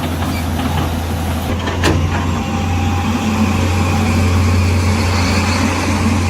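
A motor running steadily: a low hum under a broad hiss, with a single click about two seconds in.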